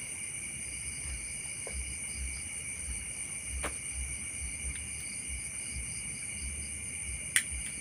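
Insect chorus of crickets: several steady high-pitched trills that run on without a break, over a faint low rumble. A faint click comes midway and a sharp, louder click near the end.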